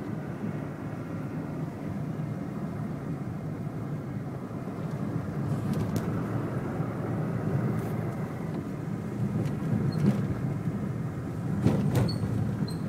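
Car engine and tyre noise heard from inside the cabin while driving: a steady low rumble, with a few short knocks, the loudest near the end.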